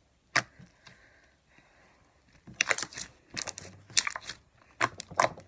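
Firm slime being squeezed and poked by hand, making a quick run of sticky clicks and small crackling pops from about two and a half seconds in, after a couple of single clicks.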